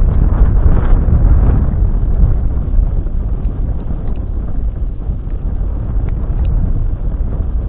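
Wind buffeting the microphone: a loud, uneven low rumble, strongest in the first two seconds, then easing a little.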